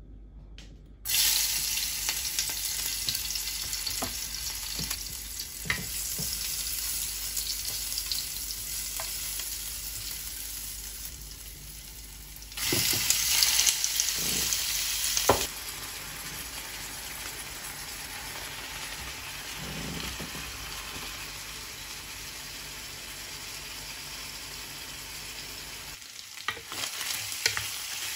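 Food sizzling in hot oil in a nonstick frying pan, with occasional short knocks of a wooden spatula stirring. The sizzle starts about a second in and grows louder for a few seconds midway, as minced meat goes into the pan.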